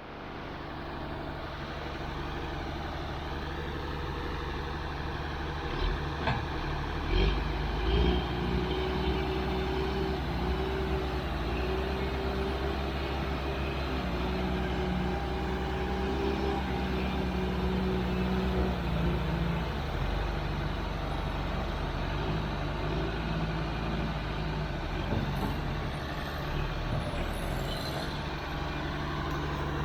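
Heavy diesel equipment engine running steadily, its pitch rising and falling in the middle stretch as it works under load. A few sharp metallic knocks come about six to eight seconds in.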